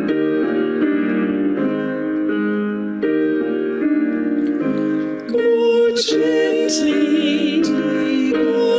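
Grand piano playing slow chords. About five seconds in, a woman's singing voice comes in with vibrato over the piano.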